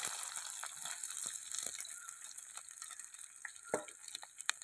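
Freshly added sliced onions frying in hot coconut oil in a clay pot: a fine sizzle that slowly fades, with scattered small pops and crackles.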